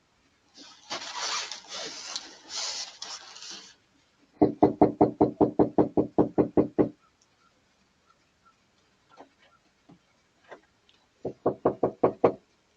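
Rapid knocking on a front door, picked up by a doorbell camera's microphone: a run of about fourteen quick knocks, roughly six a second, then after a pause with a few faint taps a shorter run of about seven. Before the knocking comes a few seconds of rustling, scraping noise.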